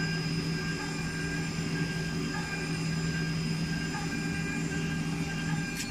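High-speed spindle of a CNC milling machine cutting a metal block under coolant spray: a steady machine whine made of several held tones over a hiss, heard through the machine's glass enclosure. A single short click near the end.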